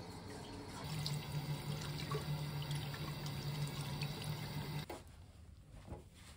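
Water running from a bathroom mixer tap into a sink while hands are washed with soap, the stream splashing over the hands; it cuts off suddenly near the end.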